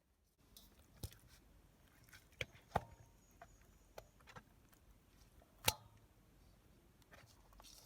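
Irregular sharp knocks and clicks of hard objects being handled, a few with a brief metallic ring. The loudest come near three and six seconds in.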